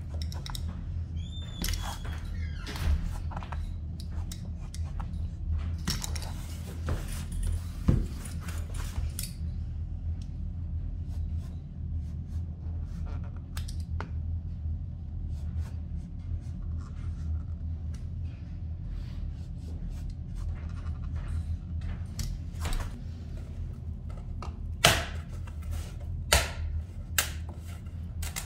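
Utility knife scoring and cutting a vinyl plank: repeated short scraping strokes and clicks, a few sharper ones near the end, over a steady low hum.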